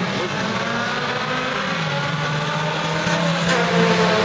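Several U-car class dirt-track race cars running at speed together, engines held steady around the oval and growing a little louder near the end as the pack passes close.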